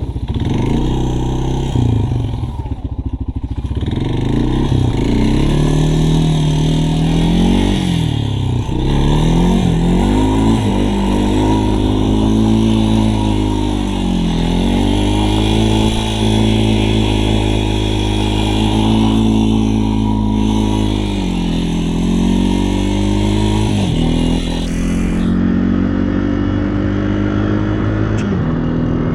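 Engine of a vehicle being ridden, running hard. Its pitch drops and climbs again several times as the throttle is eased and opened.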